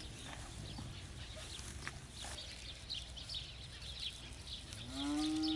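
A cow moos once near the end: one long call that rises slightly and then holds steady. Faint high chirps are heard before it.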